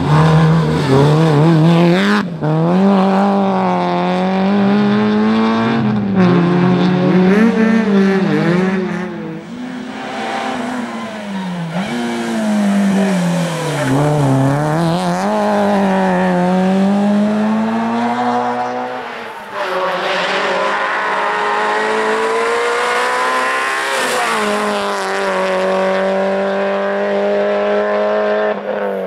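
Peugeot 205 GTI rally car's four-cylinder engine revving hard. Its pitch repeatedly climbs and drops with throttle lifts and gear changes through the corners. It then runs at steadier revs as the car pulls away.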